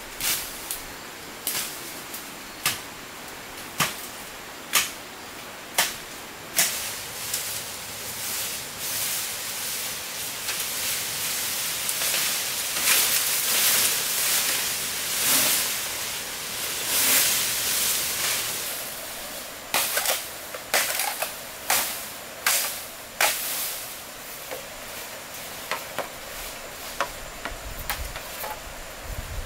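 Sharp knocks, about one a second, then a stretch of dense scraping or rustling noise with many small hits, then another quick run of knocks.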